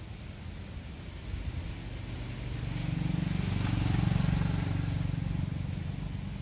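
A motor vehicle's engine passing: a low hum that grows louder about halfway through and then fades away.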